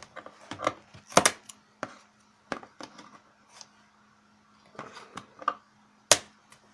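Keyboard's retail box being opened by hand: a string of sharp clicks, taps and scrapes of the packaging, with the loudest snaps about a second in and near the end.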